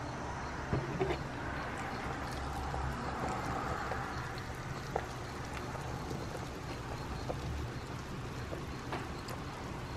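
Slow cooker's braising liquid simmering: faint, scattered popping and crackling over a steady low hum.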